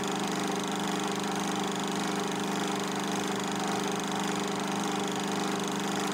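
A film projector running: a steady mechanical hum and whir, with hiss, that does not change.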